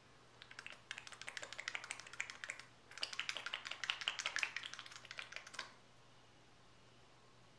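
Faint, rapid clicking and tapping in two runs of about two and a half seconds each, with a short break between them.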